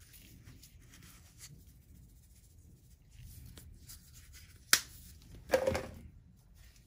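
Spice containers handled over a stainless steel bowl of seasoned chicken: soft handling noise, then a sharp click about two-thirds of the way in and a longer clatter just after.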